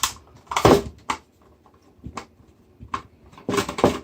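Sharp clicks and clattering knocks of a screwdriver and hard parts being handled while a small screw is worked out of the film scanner's housing. The loudest clatter comes about half a second in, with another cluster near the end.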